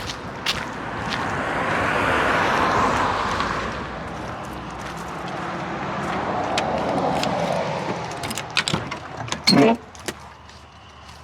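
Two road vehicles pass one after the other, each a swell of tyre and engine noise that rises and fades. Near the end comes one loud, short clunk.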